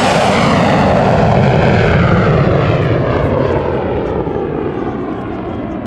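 MiG-17 jet fighter flying past with its afterburner lit: a loud jet roar whose pitch slides downward as the aircraft passes and draws away, easing slightly in loudness near the end.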